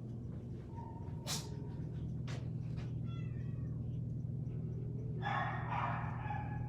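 Domestic cat meowing: a short meow about three seconds in and a longer one near the end, over a steady low hum.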